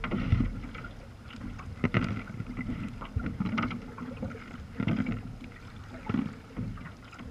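Sea kayak paddle strokes splashing through sea water in a steady rhythm, a stroke about every one and a half seconds.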